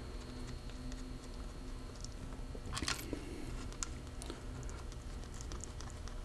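A few faint metallic clicks and taps of bolts being handled and started into a Super T10 four-speed transmission's side cover, the clearest about three seconds in.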